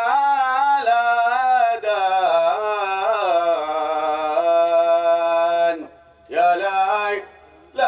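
A solo man's voice singing an unaccompanied, ornamented Arabic chant in long, sliding phrases. The voice breaks off briefly about six seconds in and again near the end.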